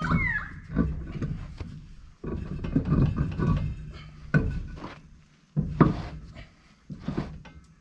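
Steel dual-wheel rim of a truck scraping and clanking on the wheel studs as the heavy outside tyre is worked off the hub and turned, with several sharp metallic knocks and a brief scrape near the start.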